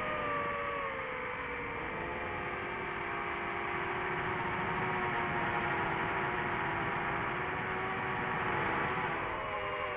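DJI FPV drone's brushless motors and propellers whining in flight, the pitch sliding down over the first couple of seconds as the throttle eases, holding steady, then shifting up again near the end.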